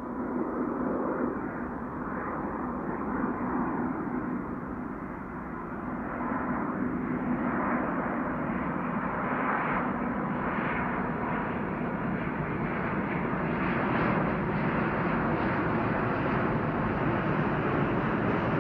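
Scandinavian Airlines Airbus A350's Rolls-Royce Trent XWB jet engines on approach, a steady jet noise that grows louder as the plane comes closer overhead.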